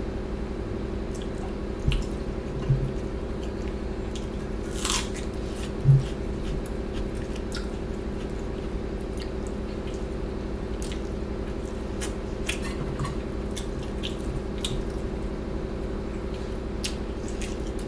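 Close-miked mukbang eating: wet chewing of soft rice and curry, with many small mouth clicks and smacks and a few soft low thumps, while fingers squish rice and curry on a steel plate. A steady low hum runs underneath.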